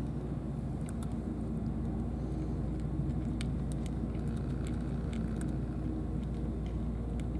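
Steady low engine rumble throughout, with sparse, irregular crisp clicks of a cat crunching dry kibble.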